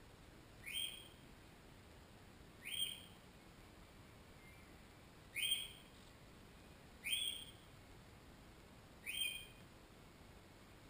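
A bird calling: five short, rising whistled chirps, a couple of seconds apart.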